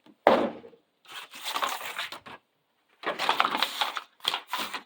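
Cardboard and plastic packaging being pulled and crushed as a boxed tool case is unpacked: three bouts of rustling and scraping, the first starting with a sharp knock.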